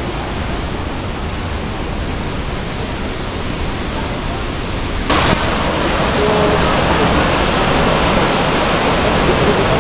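Steady rush of a torrential waterfall and its rapids. About five seconds in there is a brief hiss, after which the water is louder and brighter.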